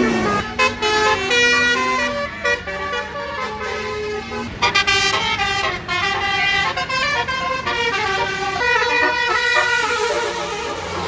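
Bus 'telolet' horn, a Basuri multi-tone air horn, playing a melody of short notes that step up and down in pitch several times a second.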